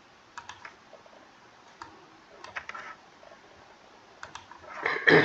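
Computer keyboard keys clicking: a few scattered keystrokes while text is edited on screen, ending with a louder short sound near the end.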